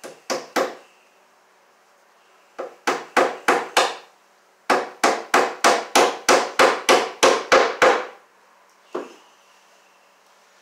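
Hammer blows against a wooden ceiling joist overhead as electrical cable is fastened to it: three runs of quick, even strikes at about three a second, first three, then five, then about eleven, with a single blow near the end.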